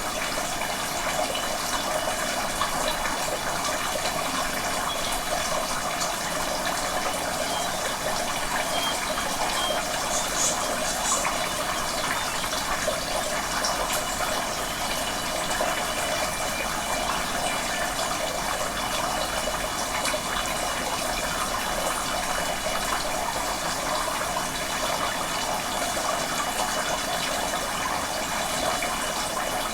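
Steady rush of flowing water, an even hiss with no breaks, with a few faint steady high tones held above it.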